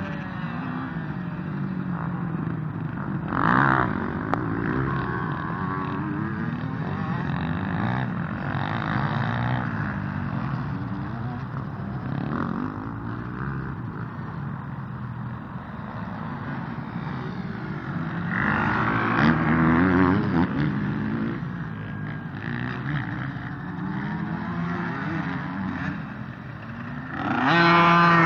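Scrambler (dirt bike) engine revving up and down as it is ridden around the track. The pitch rises and falls with the throttle, fading with distance and swelling louder a few times. It is loudest near the end as the bike comes toward the camera.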